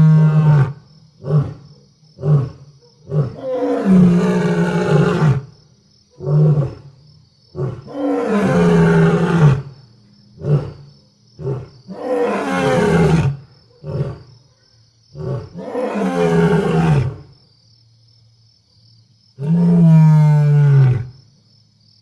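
Lion roaring: a bout of long, deep roars that fall in pitch, alternating with short grunts, with a pause of about two seconds before a last long roar near the end.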